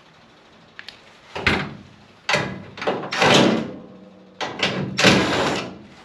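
Screws being backed out of the dryer's front sheet-metal panel with a 5/16 nut driver: a run of about five short, noisy bursts, the loudest about three seconds in and again near five seconds, with a few light clicks between.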